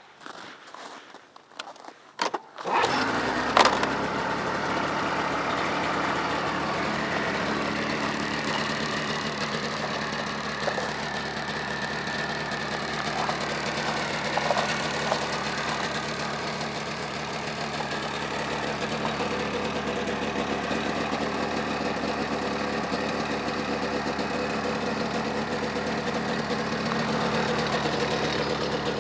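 A 2001 Polaris XCSP 500 snowmobile's two-stroke twin engine starting about three seconds in after a few short clicks, then running steadily at idle.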